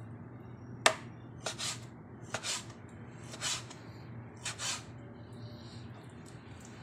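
Kitchen knife slicing raw chicken on a plastic cutting board: a sharp knock of the blade on the board about a second in, then a series of short swishing cuts through the meat, about one every half second to a second.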